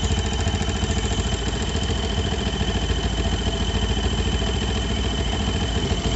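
Yamaha Jupiter MX 135 cc liquid-cooled single idling hot, with a steady high whistling hum over the engine beat, like a pigeon-tail whistle (sawangan), a whistle-like wind or friction sound. The noise is louder the hotter the engine gets. The owner traces it to the cylinder head area and links it to the radiator cooling system, whose fan is not turning though the engine is hot.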